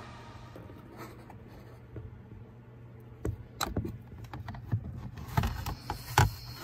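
Hands handling the parking brake assembly and plastic console trim of a 2015 Dodge Dart: scattered small clicks, taps and rustles, with sharper knocks in the second half and the loudest knock near the end.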